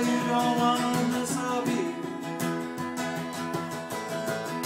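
Two acoustic guitars strummed together in a steady rhythm, with a man's sung note held over them that ends about a second in.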